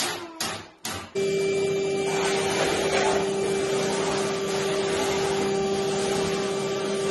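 A Makita cordless drill driving screws into plasterboard in a few short bursts, then from about a second in a cylinder vacuum cleaner running steadily with a constant hum, its hose sucking dust off a concrete floor.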